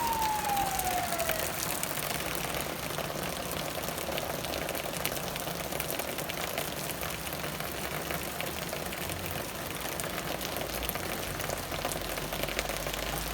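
Steady rain shower falling, easing off. Over the first second or so a siren's falling wail dies away, and a low rumble comes in near the end.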